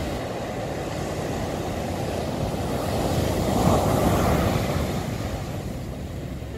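Ocean surf breaking on a sandy beach, a steady rush of water that swells as a wave crashes close to shore about midway, then eases.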